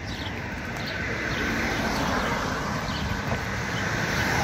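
A car approaching along the street, its tyre and engine noise growing steadily louder, with a few faint bird chirps in the first second or so.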